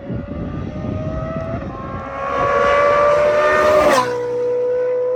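Straight-piped Ferrari 458 Speciale V8 pulling hard at high revs, its pitch creeping up and growing louder about two seconds in. About four seconds in an upshift drops the pitch, and it runs steady at the lower note.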